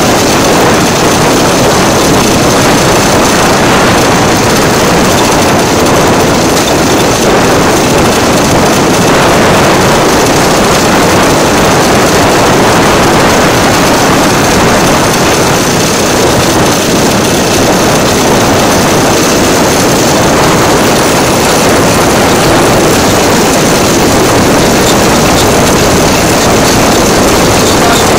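DL2 motor draisine running steadily along the track: its engine and wheels on the rails make a loud, even, unbroken noise.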